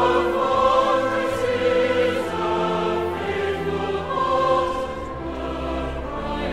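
Background choral music: a choir singing long held notes that change every second or so.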